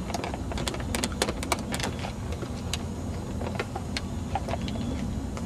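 Handling noise and footsteps from a handheld camera carried on a walk: a steady low rumble with a quick run of sharp clicks in the first two seconds and a few scattered clicks later.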